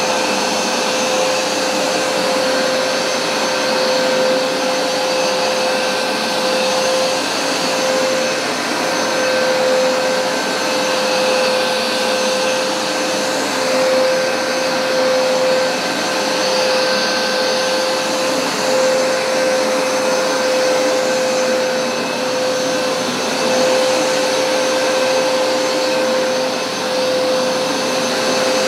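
Hoover SmartWash Pet automatic carpet cleaner running steadily: its suction motor gives a loud, even whine over a rushing air and brush noise while it washes the carpet.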